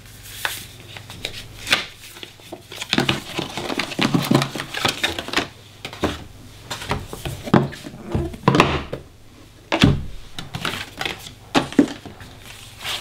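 Cardboard box and paper packaging being handled: rustling of paper sheets and card inserts with irregular light knocks and scrapes as pieces are lifted out and the box is moved.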